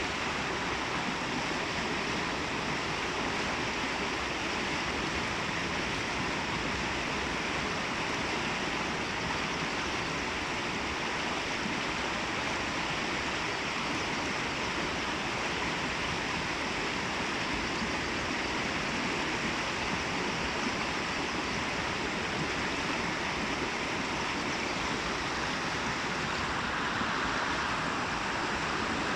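Water cascading through a small babbling brook: a steady, unbroken rush.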